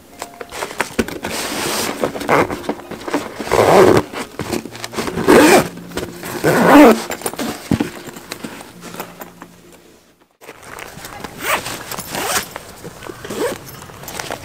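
Zipper on a canvas bag being pulled shut in several rising strokes, the loudest about four to seven seconds in. After a short break near ten seconds, lighter rustling and handling.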